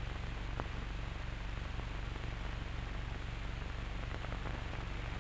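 Steady hiss with a low hum underneath, the background noise of an old cine film soundtrack, with one faint click about half a second in.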